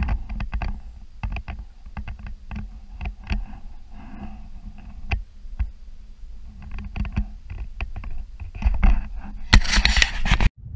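Water lapping and slapping against the plastic hull of an Ascend FS12T fishing kayak, heard close to the hull as irregular small knocks over a low rumble. A louder burst of noise comes near the end.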